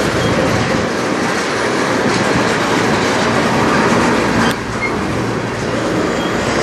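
Freight cars of a CN manifest train rolling past on the rails, a steady rumble with wheels clattering over the track. There is one sharp clank about four and a half seconds in.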